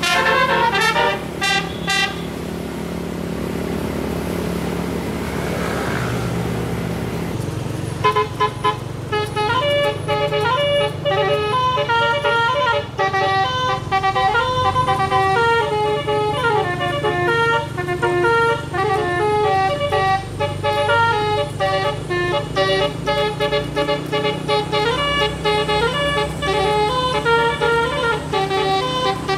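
Tour bus 'telolet' multi-tone horn playing quick runs of bright notes, breaking off about two seconds in for a stretch of bus engine running, then starting again at about eight seconds with a long, fast melody that runs on over the engine.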